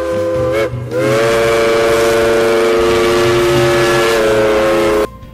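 Steam train whistle sounding a chord of several notes: a blast that ends under a second in, then a long blast of about four seconds that cuts off abruptly near the end.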